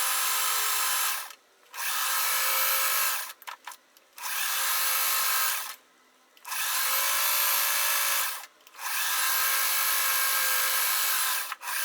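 Sewing machine motor running in a series of stop-start runs, each one to three seconds long with brief pauses between, stitching a seam along quilt strips.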